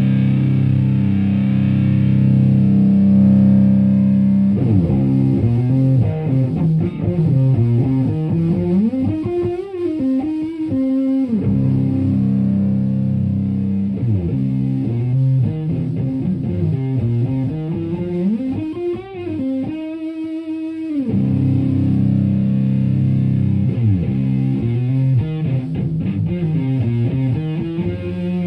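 Fuzz-distorted electric guitar: a Stratocaster through a Violet Ram's Head Big Muff pedal into a Marshall Plexi head and 4x12 cabinet. A held low chord opens, then a lead phrase with wide string bends is played twice, and low chords return near the end.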